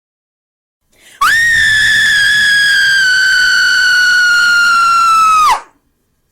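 A woman screaming: one long, loud, high-pitched scream that starts about a second in. It leaps up in pitch, then sinks slowly over about four seconds before breaking off sharply.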